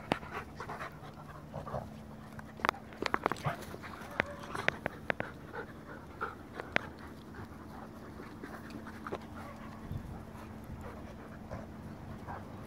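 A goldendoodle and a Bernese mountain dog puppy play-fighting: panting, with a cluster of sharp clicks from about two and a half to seven seconds in as they mouth at each other.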